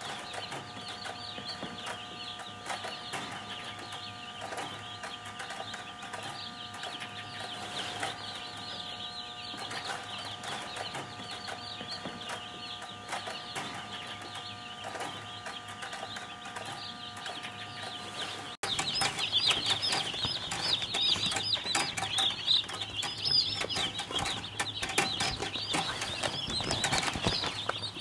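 A crowd of Cornish Cross broiler chicks peeping continuously, many high chirps overlapping. About two-thirds of the way through, the sound cuts and comes back louder and closer.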